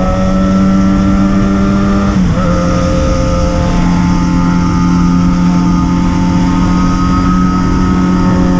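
Yamaha XJ6's inline-four engine and exhaust running loud at a steady, fairly high engine speed, with a small drop in pitch about two seconds in before holding steady again.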